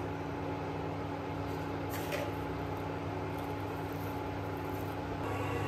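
A steady low machine hum with several fixed low tones, and a faint short hiss about two seconds in.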